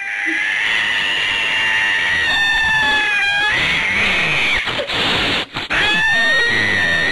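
An angry orange tabby cat yowling: a long, drawn-out defensive yowl that breaks into a hiss, then, after a short pause, a second long yowl. The cat has its ears flattened and teeth bared, a sign of fear or aggression.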